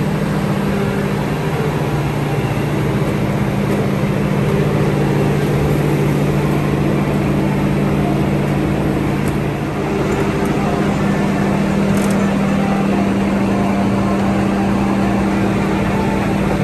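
Engine of an amphibious tour vehicle idling, a steady low drone.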